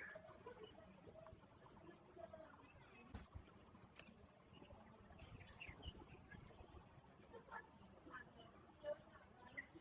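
Faint, steady, high-pitched drone of insects, with soft distant voices murmuring underneath and a couple of light clicks about three and four seconds in.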